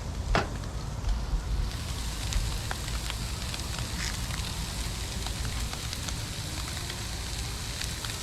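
Shredded chicken frying in oil on a hot Blackstone griddle's cast iron top: a steady sizzle with scattered sharp pops and a low rumble underneath.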